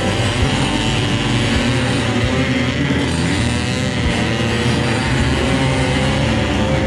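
Racing Vespa scooter engines running steadily, their pitch wavering, mixed with music.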